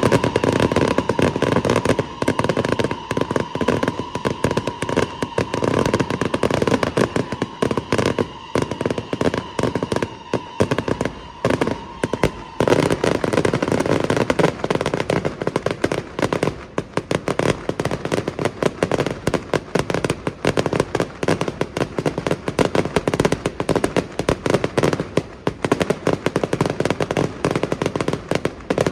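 Festival fireworks going off in a rapid, unbroken string of bangs and crackles. A steady high tone sounds under them for about the first twelve seconds, then fades.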